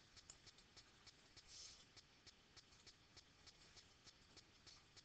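Near silence: faint room tone with light, regular ticking, about three ticks a second.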